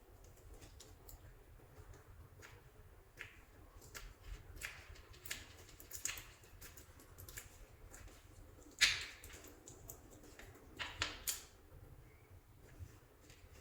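Soft clay being squeezed and kneaded by hand, giving scattered small sticky clicks and crackles, the sharpest a little under nine seconds in.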